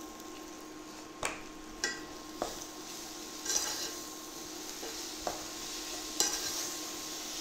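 A spoon stirs a saucepan of frying onions, peppers, pineapple and spices over a soft, steady sizzle, knocking against the pot several times at uneven intervals. The sugar-and-spice mixture is caramelising in the oil.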